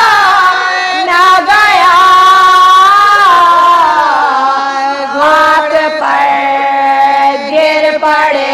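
A woman's voice chanting a marsiya, the Urdu elegiac recitation, in long drawn-out held notes that waver slowly in pitch, dropping to a lower held note about four seconds in.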